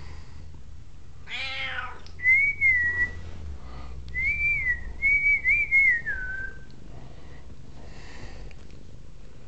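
Domestic cat purring, a low steady rumble that weakens about a third of the way in, with a short meow about a second and a half in. Then a person whistles three short warbling notes on one high pitch, the loudest sound here, the last one sliding down.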